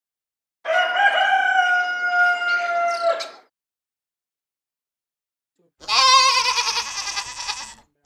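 A rooster crows once, a long cock-a-doodle-doo. After a pause of about two seconds a goat bleats with a wavering voice.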